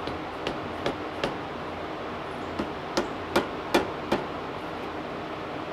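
A mallet tapping on a brake caliper: about nine sharp knocks, a few near the start and then a quicker run a little past the middle. The tapping shakes loose air bubbles trapped in the caliper while the brakes are bled.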